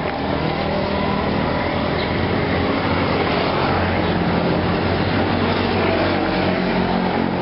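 Street traffic: motor vehicle engines running and passing, a steady noise.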